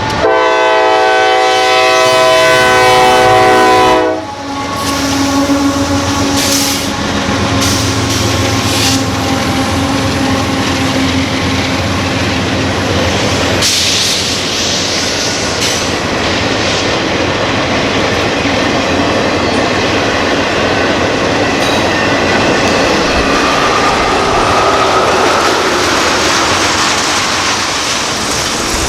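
Nathan K5LA air horn on a GE CM44AH locomotive sounding a chord for about four seconds. Then the GE diesel locomotives run past, followed by the continuous rumble and wheel clatter of freight cars, with a faint wheel squeal a few seconds before the end.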